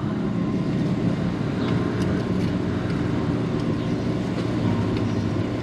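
A steady low mechanical hum, like an engine running, with a few faint ticks.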